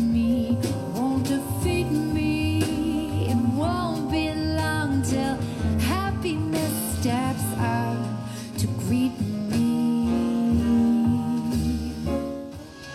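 A song plays: a singer's voice glides between notes over guitar and bass. The music dips near the end as another track begins.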